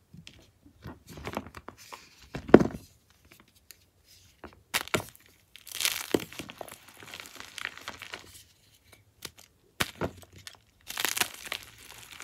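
A coloured block of gym chalk being pressed and crushed by hand, cracking and crumbling in irregular bursts, with the loudest crack about two and a half seconds in.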